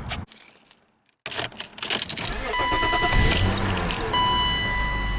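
Keys jangling at the ignition of a 1995 BMW 525i, then its 2.5-litre straight-six starts about two seconds in and settles into a steady idle. Over it the car's warning tone sounds in long, even beeps.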